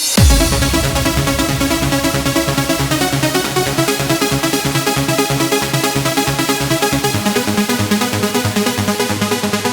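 Electronic dance music with a steady, fast beat. It kicks in loudly at the start with a falling bass swoop.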